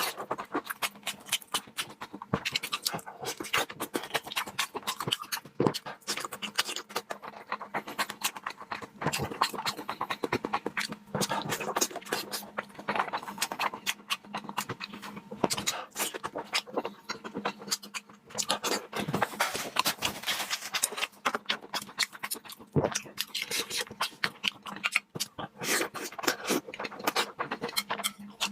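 Close-up wet chewing and lip-smacking of someone eating salmon: a steady stream of irregular clicks and squelches. A faint steady hum lies underneath.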